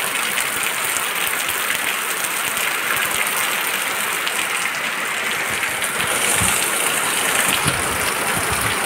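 Heavy rain pouring down as a steady dense hiss, with a couple of soft low knocks past the middle.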